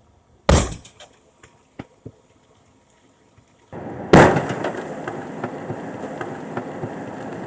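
A gasoline-soaked washing machine exploding: a loud blast about half a second in, then several sharp pops over the next second and a half, and a second loud blast a little after four seconds followed by a steady crackling fire.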